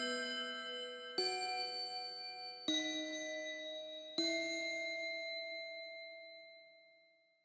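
Slow closing music of bell-like struck chords, a new chord about every second and a half, the last one ringing on and fading out to silence near the end.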